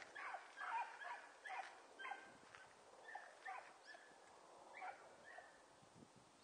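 A pack of hunting dogs yelping in the brush as they work a rabbit. Short, high, repeated yelps come about every half second to a second and grow fainter and sparser toward the end.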